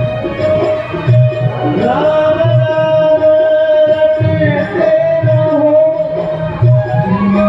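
Devotional music: a singer holding long notes that glide between pitches, over a steady hand-drum beat.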